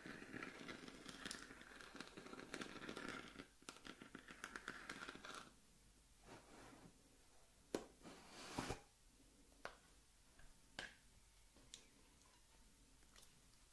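Close-up handling of a metal tin of shaving soap: a scratchy rustling for about five seconds, then quieter, with a handful of light taps and clicks.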